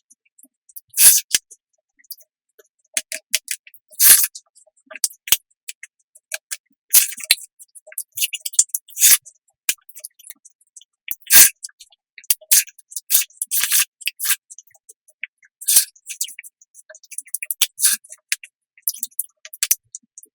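Close-miked eating sounds: crisp, wet chewing of mouthfuls of a watermelon, roast duck and tomato rice bowl, in irregular sharp bursts, with utensil scrapes against the bowl.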